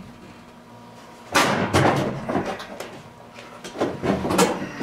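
Plywood panel knocking and scraping against the bus's overhead framing as it is worked out of a tight fit. A scraping rush starts about a second in, followed by several sharp wooden knocks.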